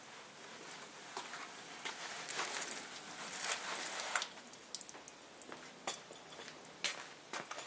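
Garden hose on a soft shower spray, water spattering and dripping on a car's body, with irregular small taps and splashes.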